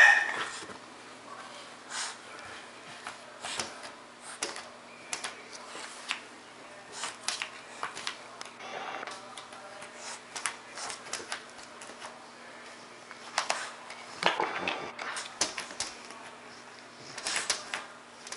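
An English bulldog puppy moving about, making irregular light clicks and taps, with a louder cluster of sounds about 14 seconds in.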